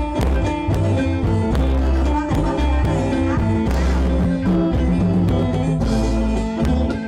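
Live amplified Isan folk music: khaen (bamboo mouth organ) playing held chords over drums and a heavy bass beat.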